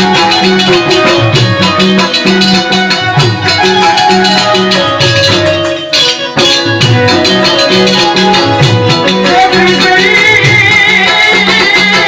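Music with a steady repeating beat, rattling percussion and a bass line. It dips briefly about six seconds in, and a wavering high melody line comes in near the end.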